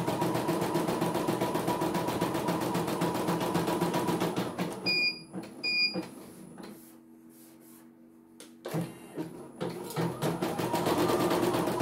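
CNY E900 portable embroidery machine stitching at a fast, even rate. It stops with two short beeps about five seconds in and hums faintly while it is stopped. It starts stitching again about nine seconds in.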